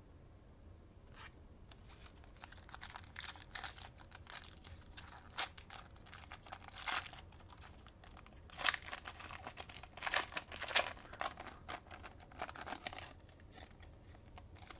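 Foil trading-card pack wrapper being torn open and crinkled by hand: irregular crackling rustles with several louder sharp tears through the middle.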